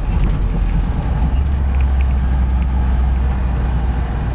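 1964 Cadillac Series 62's 429 V8 running while the car is driven, a steady low exhaust drone that grows stronger about a second and a half in. The car has an exhaust leak, which adds to the exhaust note.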